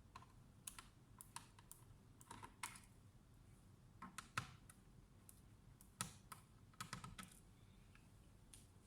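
Faint, irregular plastic clicks and snaps from an Asus X415E laptop's bottom cover being pried open, its clips letting go one by one; the sharpest snaps come about four and a half seconds in and at six seconds.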